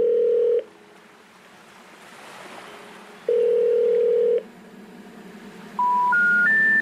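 Electronic beep tones: a long flat beep, another about three seconds later, then three short beeps stepping up in pitch near the end. A faint steady hiss sits between them.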